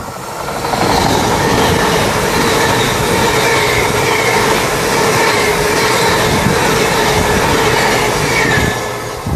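Great Western Railway Hitachi Intercity Express Train passing close by on its underfloor diesel engines, a loud steady rush of wheels on rail with a steady whine on top. The sound builds over the first second and eases a little near the end as the last carriages go by.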